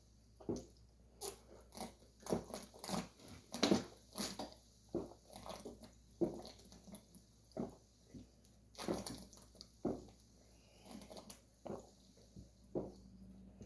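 A person chugging sparkling water: a string of irregular gulps and swallows, about one or two each second.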